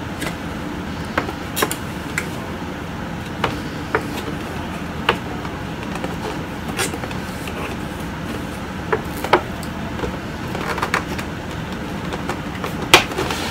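Cardboard Funko Pop box being handled and opened by hand: scattered light taps, clicks and rustles, with a sharper click near the end, over a steady low background hum.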